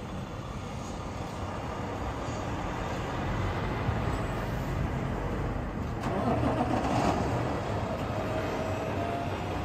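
Diesel engine of a semi-truck tractor-trailer running with a steady low rumble as the rig moves across the lot, getting louder about six seconds in, with a faint, slightly rising whine near the end.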